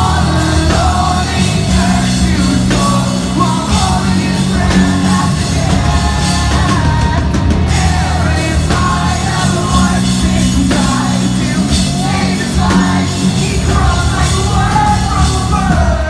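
Live rock band playing loud: guitars, bass and drums, with the singer's voice over them.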